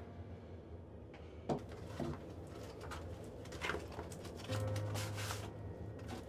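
A stiff papier-mâché newspaper mask rustling and crinkling in short, soft bursts as it is picked up and handled. A low steady tone lasts about a second, starting about two-thirds of the way in.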